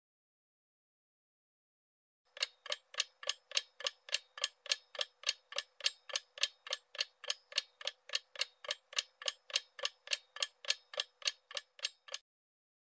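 Clock-ticking sound effect for an on-screen countdown timer. After about two seconds of silence, fast, even ticks run at roughly three to four a second for about ten seconds, then stop shortly before the end.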